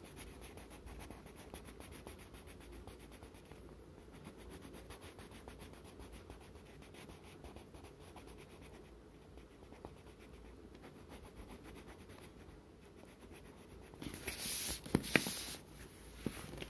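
Black wax crayon scratching steadily on paper in faint, continuous strokes as an area is coloured in. Near the end there are louder rustles and a knock as the sheet is handled.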